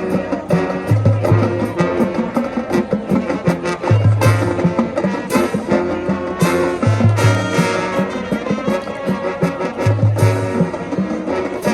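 High school marching band playing a brass-led tune with drums keeping a steady beat, a low bass note swelling about every three seconds.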